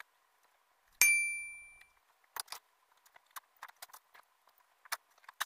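A clothes hanger clinks once with a short metallic ring about a second in, then light clicks of hangers and rustling of clothes being handled.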